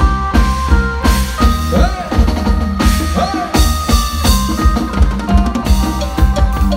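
Amplified electric phin, the Isan three-string lute, picking an instrumental melody over a drum kit keeping a steady beat on bass drum and snare, played through loudspeakers.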